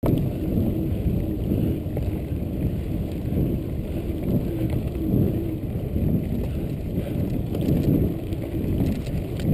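Mountain bike rolling over a dirt forest track, heard as a steady low rumble of tyres and wind on the microphone.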